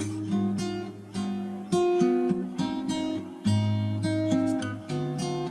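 Background music: plucked acoustic guitar, with notes and strummed chords struck about once a second and left to ring.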